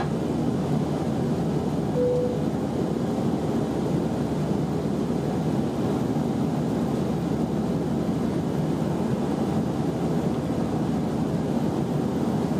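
Steady cabin noise of an Airbus A319 in flight, heard inside the cabin from a seat over the wing: an even, low rush of airflow and engine drone.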